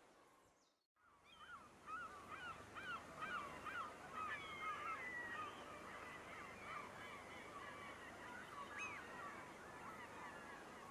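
A flock of waterbirds calling: many short, overlapping honking calls, dense and continuous, over a steady background hiss. The calls start about a second in, after the sound fades up from silence.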